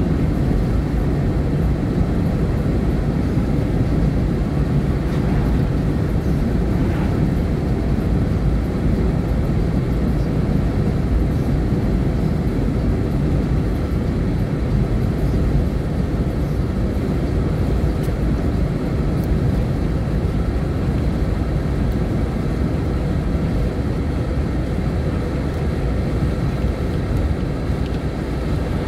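A vehicle driving at a steady speed: an even, low rumble of road and engine noise with no changes.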